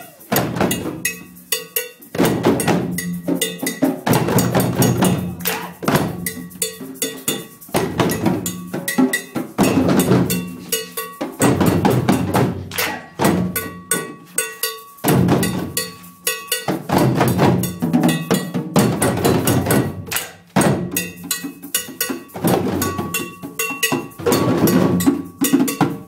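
A class ensemble of djembes played by hand in an African drumming piece: many drums striking together in a steady rhythm, in repeating phrases of about two seconds with brief gaps between them.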